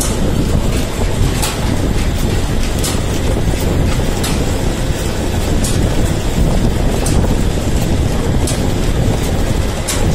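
Belt-driven metal lathe running steadily, spinning a submersible pump's shaft and stacked impellers as they are machined, with a sharp tick recurring about every one and a half seconds.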